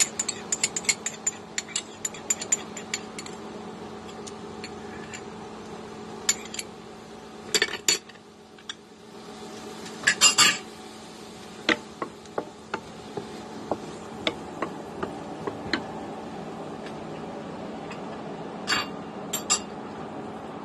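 Wooden spatula tapping and scraping against a nonstick wok while stirring a black bean and oyster sauce. The taps come quickly for the first few seconds, then as scattered knocks and short clusters. A steady low hum runs underneath.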